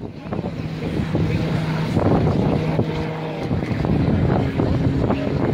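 Propeller-driven light aircraft's piston engine droning overhead, steady at first and shifting higher in pitch about four seconds in, with wind buffeting the microphone.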